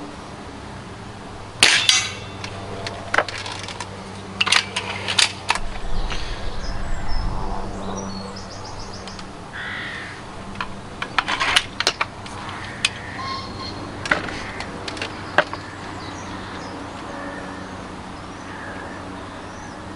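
Remington Warhawk .22 spring-piston break-barrel air rifle firing with one sharp crack about a second and a half in. A run of clicks, clacks and a low mechanical rumble follows as the barrel is broken open and cocked, a pellet is fed in, the barrel is closed and the automatic safety is pushed off.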